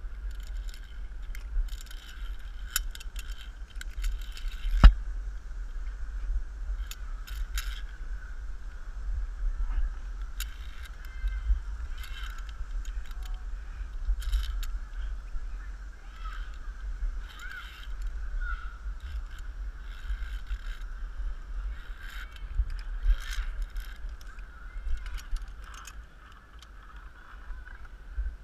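Metal clicks and jangling of safety carabiners and lanyard hardware on a ropes-course steel cable as a climber moves along it, with a sharp knock about five seconds in. A low rumble of handling noise on a body-worn camera runs underneath.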